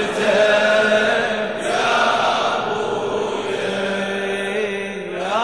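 Many men's voices chanting a Muharram latmiya lament together in long, drawn-out notes. Near the end a voice slides up in pitch.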